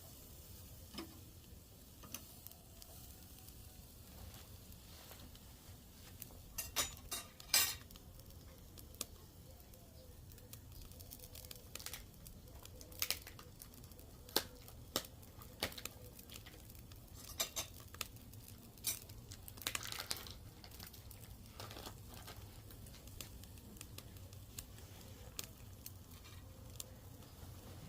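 Chuck steaks cooking on a charcoal grill: a faint sizzle with scattered sharp clicks and clinks, a few coming in short clusters, over a steady low rumble.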